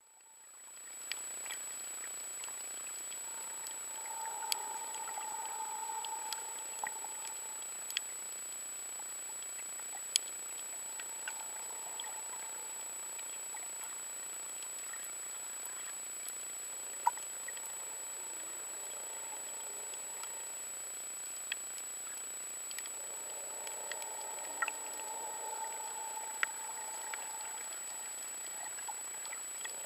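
Underwater sound picked up by a camera in a waterproof housing: a steady hiss with a thin high whine, scattered sharp ticks and clicks, and a muffled wash of sound that swells for a few seconds several times.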